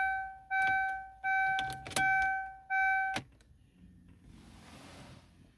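Car's dashboard warning chime beeping over and over, about one and a half beeps a second, each a steady mid-pitched tone, with clicks from the key being worked in the ignition; the chime cuts off a little past three seconds in.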